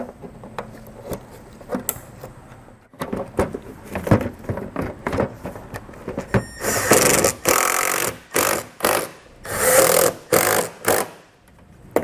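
Ford Escape taillight assembly being refitted. First it is handled and knocked into place with plastic knocks and clicks. Then a small power driver runs in several short bursts of uneven length, about halfway through, as the taillight's fasteners are driven home.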